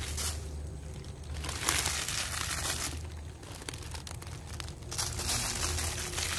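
Dry leaf mulch rustling and crinkling as compost is scattered over it by a gloved hand, in three separate bouts of rustling.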